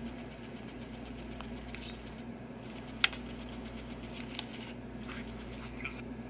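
Steady low hum with a few faint clicks and one sharp click about three seconds in.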